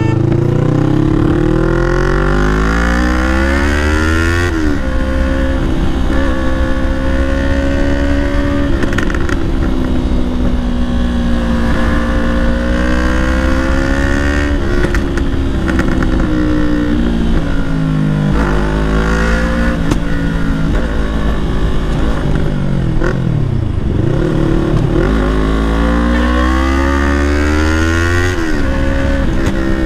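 Yamaha R3's parallel-twin engine through a full-system Leo Vince aftermarket exhaust, under way: it revs up at the start with rising pitch, drops at an upshift about four seconds in, and holds a steady cruising note. Around the middle the pitch falls as the throttle eases off, with a couple of dips, then it climbs hard again and shifts up near the end.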